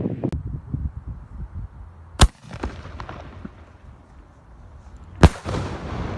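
Homemade aerial firework shell: a sharp bang as it is launched about two seconds in, then about three seconds later a louder bang as the shell bursts, each echoing.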